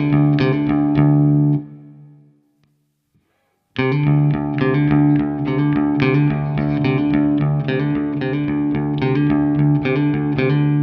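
Electric guitar played through a DaNiel Pedals optical compressor pedal: a held low note under quick, evenly picked notes, about four a second. It stops about a second and a half in, goes silent for about two seconds, then starts again suddenly and plays on.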